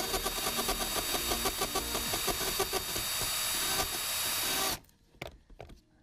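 Cordless drill running steadily with a fast pulsing as its bit drills out a metal rivet in a plastic luggage wheel housing; the motor stops abruptly about five seconds in.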